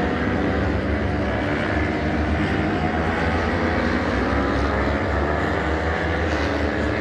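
Several Superbike racing motorcycles running hard at high revs, their engines overlapping in a continuous loud drone with pitches rising and falling as they accelerate and pass.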